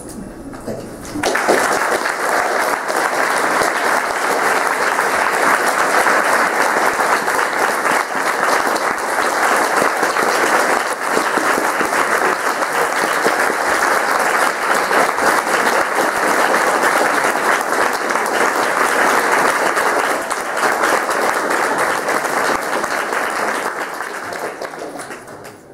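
Audience applauding steadily, starting about a second in and fading out near the end.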